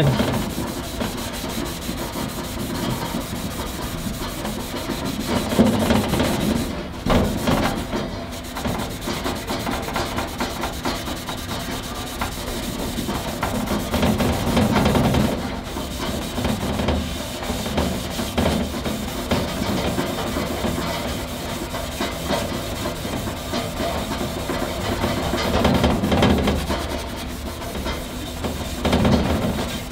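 Red Scotch-Brite abrasive pad scrubbing the stainless steel body of a charcoal grill in continuous back-and-forth strokes, brightening the steel and putting a grain finish on it.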